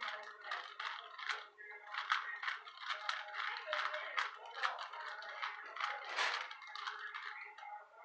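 Rubik's cube being twisted by hand: plastic layers clicking and rattling in quick, irregular turns.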